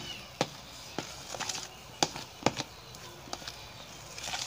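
Spatula stirring thick whipped egg batter in a plastic bowl, with irregular light knocks and scrapes of the spatula against the bowl, roughly two or three a second.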